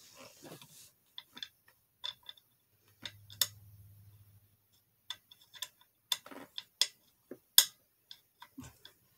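Irregular small clicks and taps of hard plastic as parts of a gaming chair's armrest are pushed and worked into place by hand, with one sharper click late on.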